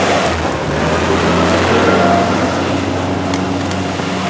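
An engine running steadily with a low, even hum under a loud rushing noise.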